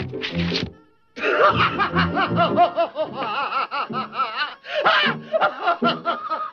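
Cartoon cat's exaggerated, wavering laughter, going on for several seconds after a brief break about a second in, over an orchestral cartoon score.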